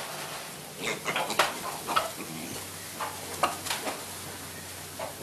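Short, irregular scrapes and knocks from hands working in a pig feed trough, coming in small clusters a second or so apart.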